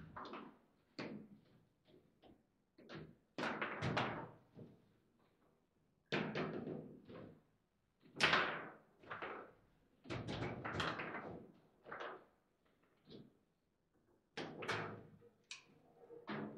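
Foosball table in play: a string of irregular sharp knocks and thuds as the rod figures strike the ball and the ball hits the table.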